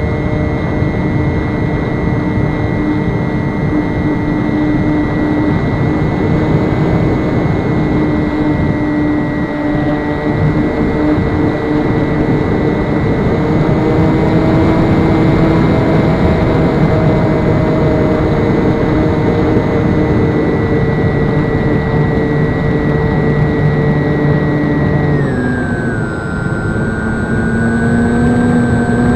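Cessna 152's four-cylinder Lycoming engine and propeller running steadily, with the pitch stepping down near the end.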